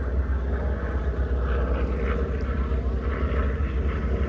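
Steady engine drone with a heavy low rumble, its pitch holding level throughout.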